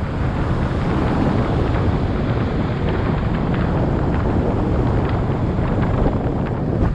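Wind buffeting a GoPro's microphone on a moving bicycle: a steady, loud rushing noise, heaviest at the low end, with a few faint ticks.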